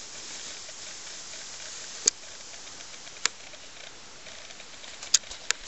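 Steady faint outdoor hiss with about five sharp, irregularly spaced clicks from a handheld camera carried by someone walking over rock and grass.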